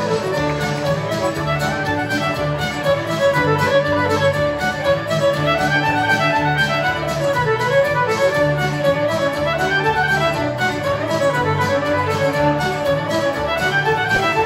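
String trio with violins playing a lively piece live, with a steady beat and a low line underneath.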